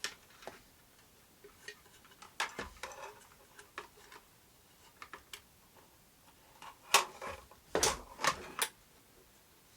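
Scattered, irregular light clicks and knocks of small hard objects being handled on a workbench, with a louder run of knocks about two-thirds of the way through.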